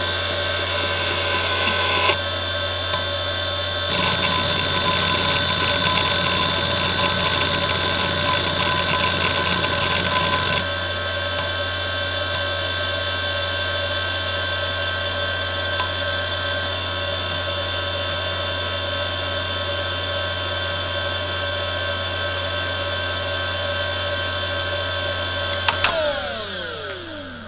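Fujitsu MPB3021AT 5400 rpm IDE hard drive under a seek benchmark, its head actuator chattering busily for the first ten seconds or so. It then just spins with a steady whine. Near the end come two sharp clicks, and the drive spins down, its whine falling in pitch and fading.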